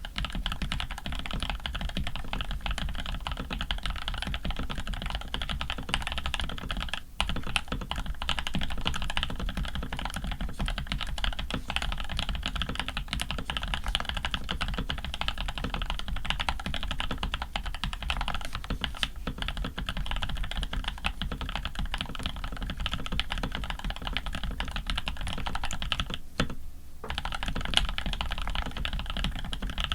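Continuous fast typing on a Rama U80 custom mechanical keyboard with lubed Creamsicles switches, aluminium plate and PBT keycaps: a dense run of key clacks, broken by a brief pause about seven seconds in and another near the end.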